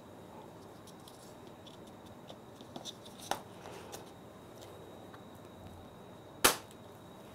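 Plastic enamel screens and a small vial being handled on a tabletop: a few light clicks and taps about three seconds in as the screen is set back on its base, then one sharp knock, the loudest sound, near the end.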